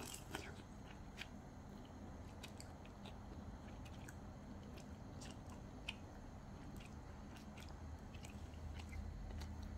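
A person eating instant noodles with chopsticks: faint chewing, with scattered light clicks over a steady low hum.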